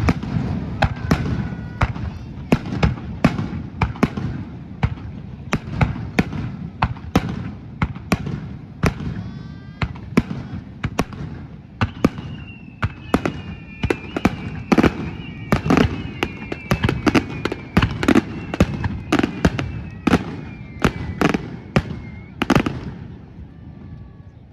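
Aerial fireworks display: rapid volleys of sharp bangs, joined from about halfway by several whistling shells whose pitch falls slowly. The bangs stop shortly before the end.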